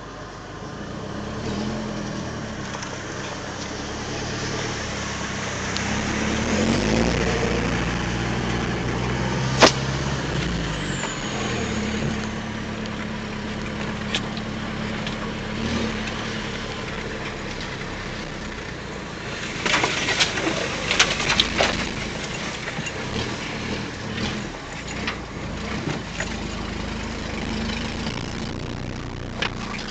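4x4 engine running at low speed on a rutted mud track, revving up and falling back a few times, with a sharp knock and a burst of knocks and rattles about twenty seconds in as the vehicle jolts over the ground.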